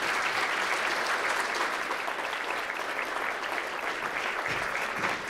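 A roomful of seated people applauding steadily at the close of a talk.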